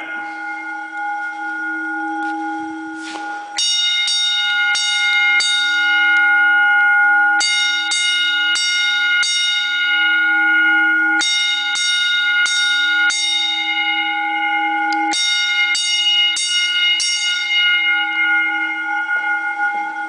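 Autocall 10-inch single-stroke electric fire alarm bells sounding the alarm after a pull station has been tripped. They strike in groups of four quick strokes about half a second apart, a new group roughly every four seconds, and each stroke rings on between groups. Two lone strokes come in the first few seconds.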